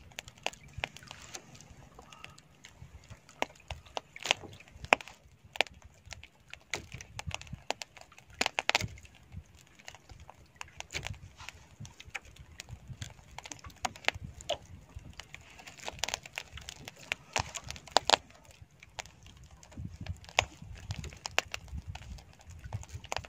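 Embers in a coconut-shell fire crackling and popping as squid grills over them: irregular sharp pops and snaps, a few louder ones, over a low steady rumble.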